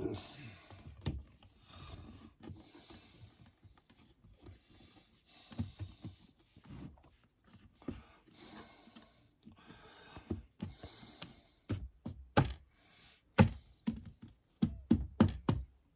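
Small clicks, scrapes and rattles of a guitar amp's back plate and its screws being handled and fitted, with a run of sharper knocks near the end.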